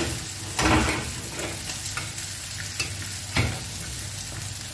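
Steel ladle stirring and scraping thick chicken masala in a stainless steel pot, over a steady sizzle of frying. The loudest scrapes come just under a second in and again about three and a half seconds in.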